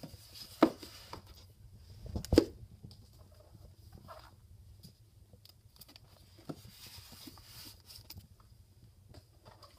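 Paperback manga volumes being handled and slid on a bookshelf: rustling and light clicks, with a sharp knock about half a second in and a louder knock about two and a half seconds in.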